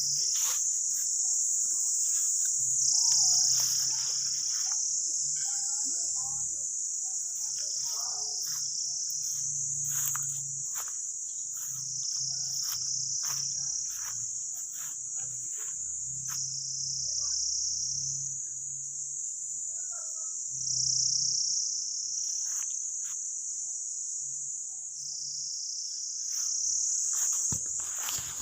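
A dense chorus of insects shrilling without a break: a loud, high, steady drone that steps slightly up or down in pitch every few seconds.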